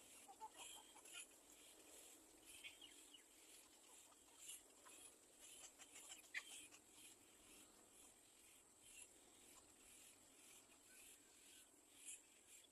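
Faint, high-pitched chirps and peeps from nestling birds, coming irregularly over a steady faint high hiss.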